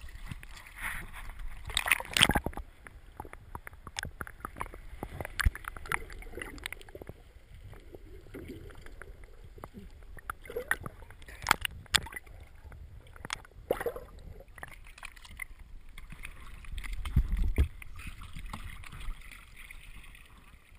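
Water splashing and sloshing around a camera in a waterproof housing, broken by several sharp knocks on the housing, with a low rumble about three-quarters of the way through.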